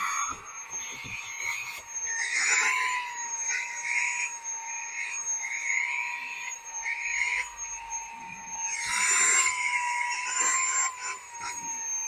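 Small cordless handheld car vacuum cleaner running with a steady high motor whine, its suction hiss swelling and fading as the nozzle is worked over car seats and into console crevices, with scattered small knocks of the nozzle and debris.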